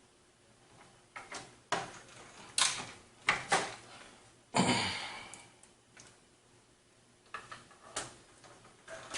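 Irregular sharp clicks and knocks of hands and tools working the screws that fasten a motherboard into a PC case, with one louder, longer clatter about halfway through.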